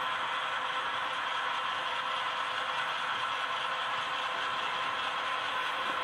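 Freight train cars rolling past, a steady rattling rumble of wheels on the rails that holds even throughout.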